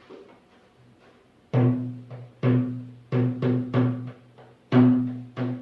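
Drum music: a low, pitched drum struck in an uneven rhythm, each beat ringing out and fading, starting about a second and a half in after faint handling sounds.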